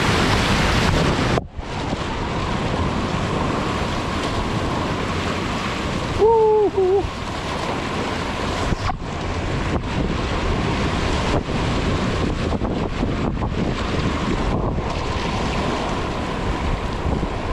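Whitewater rapid rushing and splashing around a kayak, with wind buffeting the microphone; the sound drops out sharply for a moment about a second and a half in. A short shout of "woo-hoo" about six seconds in.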